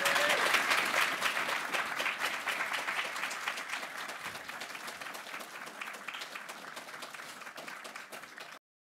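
Audience applauding, the clapping slowly dying away until it cuts off abruptly near the end.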